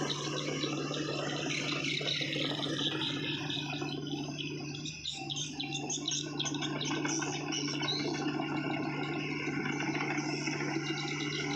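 Heavy earthmoving machine's diesel engine running steadily, with a flickering high-pitched chatter over it.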